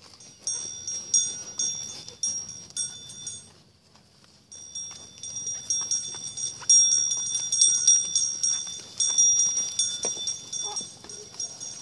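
Small metal bell on a grazing sheep's neck jingling in quick, irregular clusters of strikes as the sheep moves its head, breaking off briefly about four seconds in and ringing loudest in the second half.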